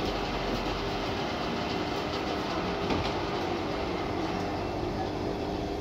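Metal lathe running with its large chuck spinning and the tool cutting a round metal workpiece: a steady mechanical drone with a constant hum.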